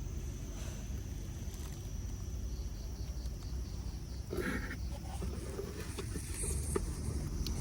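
A steady high-pitched insect trill over a constant low rumble, with a brief rustle about four and a half seconds in and a few faint clicks.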